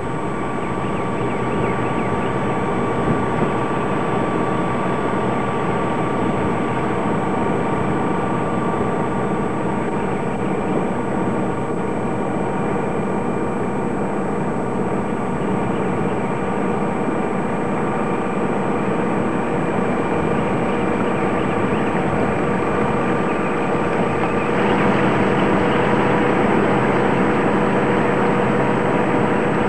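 Sailboat's inboard auxiliary diesel engine running steadily while motoring under power, a constant drone that gets a little louder near the end.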